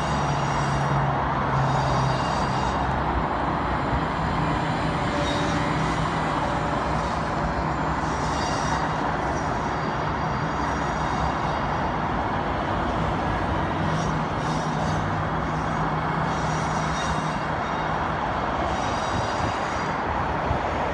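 Transperth B-series electric multiple unit running slowly past on curved track: a steady rumble of wheels and running gear, with a low hum that fades in and out.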